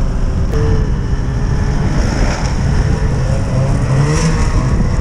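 Snowmobile engines running, a steady low rumble; one engine note rises briefly about four seconds in.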